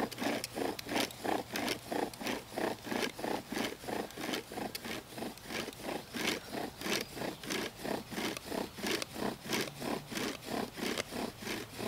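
Bow drill being worked slowly with light pressure: the wooden spindle rubs and grinds in the fireboard notch and bearing block with each pull and push of the bow, an even rhythm of about three strokes a second. This is the slow start meant to fill the notch with dust. A lot of the friction is at the top of the spindle, in a bearing block too soft for the job.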